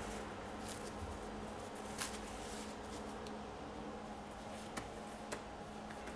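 Quiet kitchen room tone with a steady low hum, and a few soft clicks and faint rustles as a large mass of pizza dough is pulled off plastic film on a granite counter.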